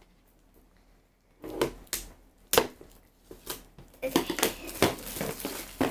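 Scissors snipping at a cardboard toy box, with the box being handled: a few separate sharp clicks and rustles, coming thicker in the last two seconds.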